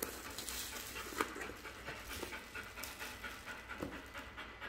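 Bubble wrap around a cardboard box crinkling and rustling as it is handled and cut with scissors, with scattered crackles and one sharper click about a second in.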